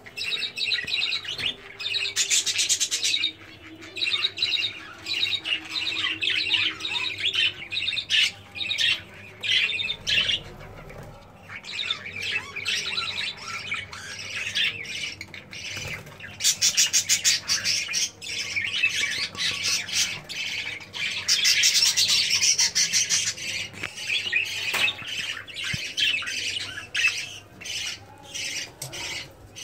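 Budgerigars chattering and squawking without a break, quick high chirps that thicken into louder, faster runs three times.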